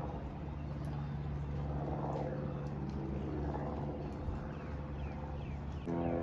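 A steady low engine hum with noise that swells and fades several times. A few short falling chirps come near the end, and music begins just before it ends.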